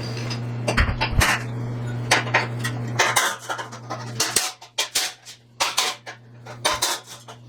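Irregular sharp metallic clanks and taps: hand tools striking and knocking against a bare steel truck bumper that is being beaten back into shape, over a steady low hum.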